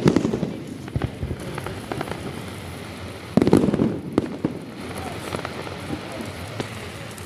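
Aerial fireworks bursting: a loud burst of crackling bangs at the start and another about three and a half seconds in, with scattered single pops between.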